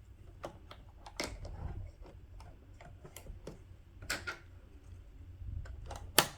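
Small plastic and metal clicks and taps as a bobbin is put into a home sewing machine's bobbin compartment, irregular, with the loudest snap near the end.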